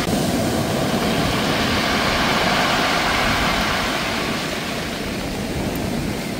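Sea waves breaking and washing up a pebble beach, a steady rush of surf that eases a little near the end.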